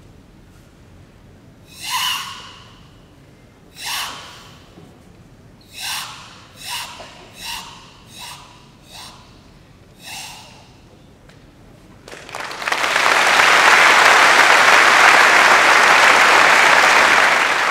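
Forceful Sanchin kata breathing: about eight sharp exhalations, the first two strongest and the rest weaker and closer together. From about twelve seconds in, an audience applauding, the loudest sound.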